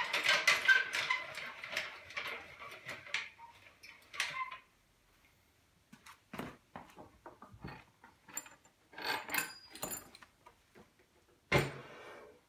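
Wood and a metal folding workbench being handled: clattering and clicks as pieces are moved about, scattered knocks in the middle, then one loud wooden thump near the end as a hardboard work surface is set down on top of the bench.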